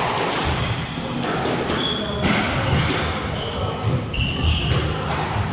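Squash rally: the ball is struck and smacks off the court walls about once a second, with shoes squeaking sharply on the court floor twice, about two seconds in and again near the end.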